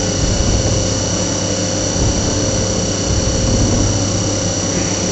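CNC milling machine running its program: a steady, high spindle whine with several constant tones over a continuous machine hum.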